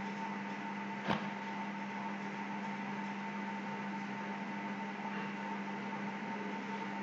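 Electric high-vacuum pump running steadily, holding vacuum on a flask of loose asphalt mix under water during the 15-minute evacuation stage of a maximum specific gravity test: an even hum with a constant tone. A single sharp click about a second in.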